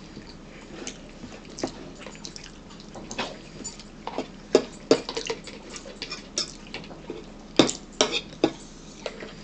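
Metal forks clicking and scraping against plastic bowls as two people eat, in irregular clinks, with a few sharper clicks close together near the end.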